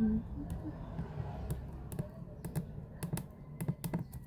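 A series of light, irregular clicks and taps, about a dozen, over a low background rumble.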